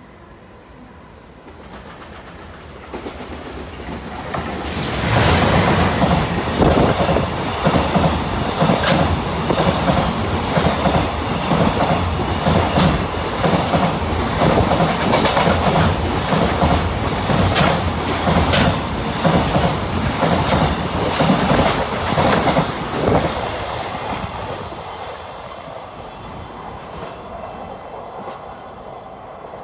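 Container freight train hauled by an EF210 electric locomotive passing close by. It builds up over the first few seconds, then gives a long run of rhythmic clickety-clack as the wagons' wheels cross the rail joints, and fades away over the last few seconds.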